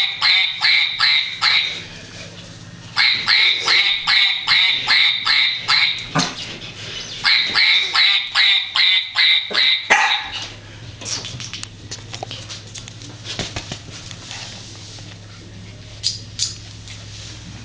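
A puppy yelping in three runs of short, high-pitched squeals, about three a second. After that it goes quieter, with a couple of faint yelps near the end.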